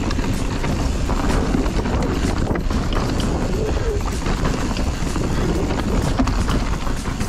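Mountain bike descending a rough dirt trail: constant tyre and trail noise under rapid, irregular rattles and knocks from the bike, with wind buffeting the helmet-camera microphone.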